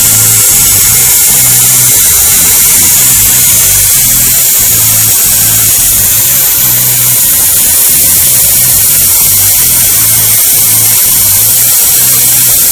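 Honda Rebel 250 (CMX250C) motorcycle engine, very loud and distorted: an uneven low pulsing under a steady hiss, from a bike being brought back to life after sitting for years.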